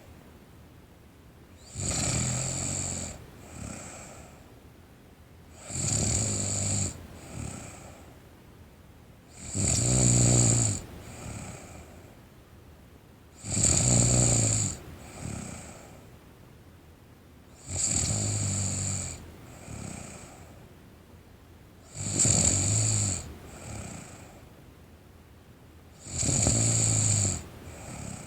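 A teenage girl snoring in her sleep: seven snores about four seconds apart, each about a second long and followed by a shorter, softer breath.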